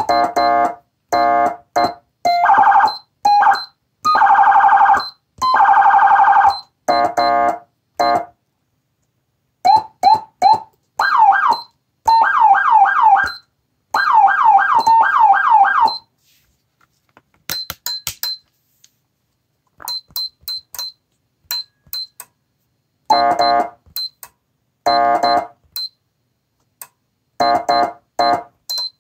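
Federal Signal SmartSiren SS2000 electronic siren switched rapidly between its tones in short bursts: wail, fast yelp sweeps about halfway through, priority, and buzzy air-horn blasts. Small button clicks fall between the bursts, which grow sparser and quieter in the second half.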